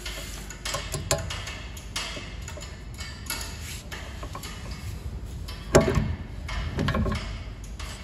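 Scattered metallic clicks, taps and clinks of hand tools and brake parts being handled during a rear brake pad change, with one louder knock about six seconds in.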